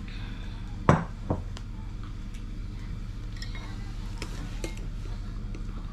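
A ceramic teacup set down on a wooden table with a sharp knock, followed by a second, lighter knock; then scattered light clicks of chopsticks against a rice bowl, over a steady low hum.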